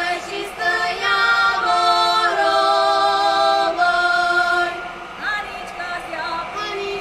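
Slovak folk song sung by a group of female voices in harmony, holding long notes. It is loudest through the first few seconds and grows softer after about five seconds in.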